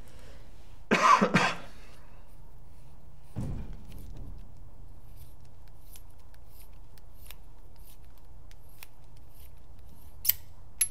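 Metal clicks and scrapes as the sections of a Dye DAM paintball marker's bolt assembly are twisted apart by hand with a metal tool through it: the threads are stiff and fighting. The loudest scrape comes about a second in, then a duller knock, then two sharp clicks near the end.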